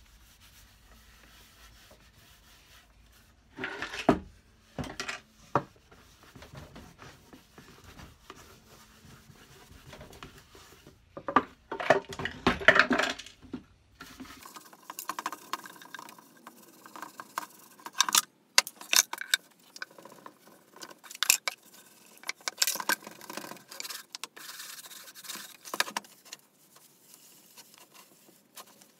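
Cloth rubbing wax polish into the wooden box in irregular bouts of scrubbing, the loudest about halfway through. From about halfway on there are short knocks and clicks as the box is handled and turned on the bench.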